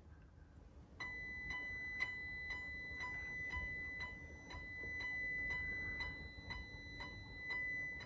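Power-supply transformer of a 1994 Precision Power Art Series A600 car amplifier giving a little whine under a dynamic power test into 2 ohms on an amp dyno. It starts about a second in: a thin, steady high tone that pulses with short ticks about twice a second as the test bursts load the amp.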